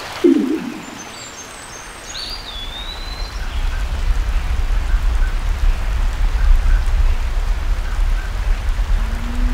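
Lake water ambience: a loud splash just after the start, a few high chirps and a gliding bird-like call over the next two seconds, then a low underwater rumble that swells and holds under a steady hiss.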